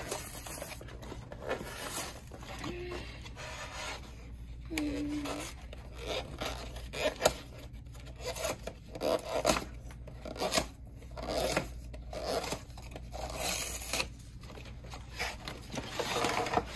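Cardboard box and paper packing being handled and pulled apart: irregular rustling, rubbing and scraping with scattered light knocks as a trading card collection box is unpacked.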